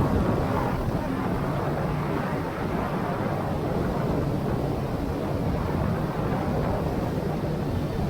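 Wind blowing across the microphone, a steady low rushing noise.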